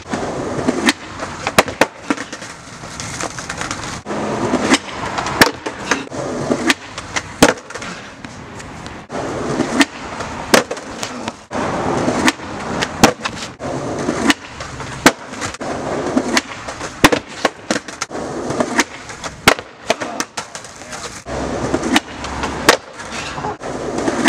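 Skateboard wheels rolling on concrete, with many sharp clacks of boards snapping and hitting the ground, irregularly about every second.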